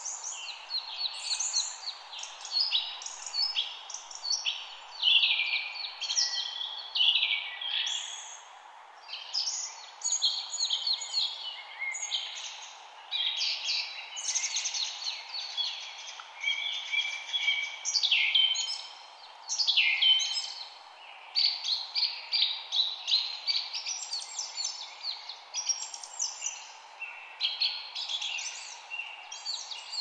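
Chorus of several songbirds singing and chirping over one another in quick, overlapping high phrases and trills, over a steady faint background hiss.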